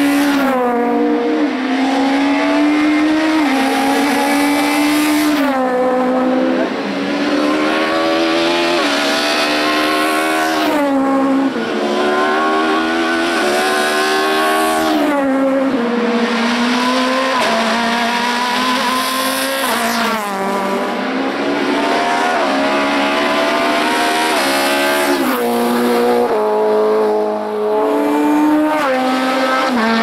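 Hillclimb race car engine revving hard up the course, its pitch climbing and then dropping back sharply several times as it works through the gears and lifts for the bends.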